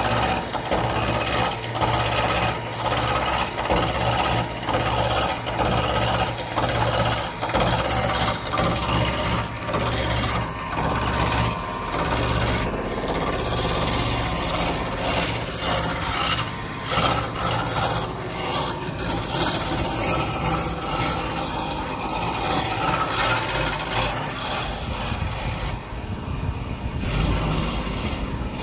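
Wood lathe running while a hand-held turning chisel cuts the spinning wood blank: a rough rasping scrape in repeated strokes, about two a second, over a steady low motor hum. After about ten seconds the cutting strokes fade, and the lathe's hum and rubbing noise carry on.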